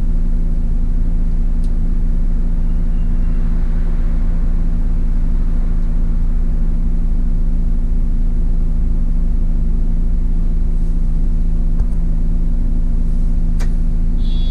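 City bus engine idling while the bus stands at a stop, heard from the driver's cab as a steady, unchanging low hum. A couple of clicks and a high beep come near the end.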